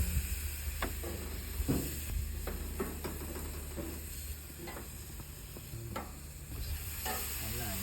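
Food sizzling on a hot grill, a steady hiss with a few light clicks and knocks scattered through it.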